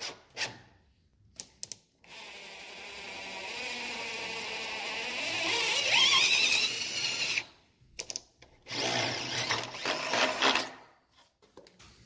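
Cordless drill boring through a timber door with a spiral wood auger bit. After a few light clicks it runs steadily for about five seconds, getting louder with its pitch rising near the end of the run; after a brief pause it runs again for about two seconds.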